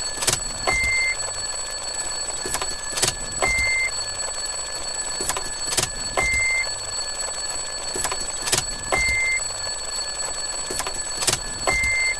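A short, high, pure beep repeating about every three seconds, each beep coming with a pair of sharp clicks, over a steady high-pitched whine.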